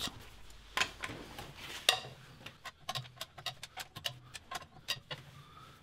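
Metallic clicks and knocks of a 17 mm socket on a breaker bar working the car's wheel nuts loose: two louder knocks, then a quick run of lighter clicks about four a second.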